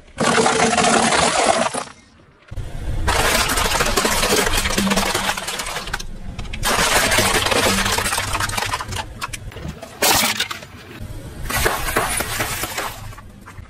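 A car tyre rolling over and crushing objects in a string of short spells, each starting and stopping abruptly: dry penne pasta crunching, a clear plastic tray of toy figures cracking, then snack packets being flattened, with a low engine rumble under the crackling.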